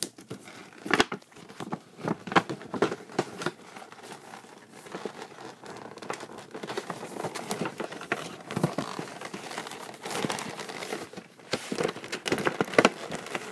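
Action-figure packaging crinkling and rustling in irregular bursts as the figure is worked out of its cardboard box and inner tray.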